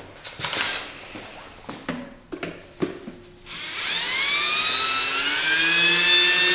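Cordless drill backing a screw out of an air compressor's plastic pump cover: a few handling knocks and clatters, then about three and a half seconds in the motor spins up with a rising whine and runs steadily.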